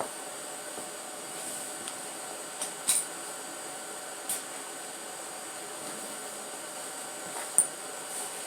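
Steady background hum with a few sharp clicks of hand tools on the engine, about three seconds in, just over four seconds in, and a louder one near the end.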